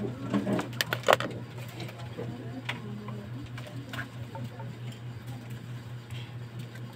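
A few sharp clicks and knocks, the loudest about a second in, over a steady low hum.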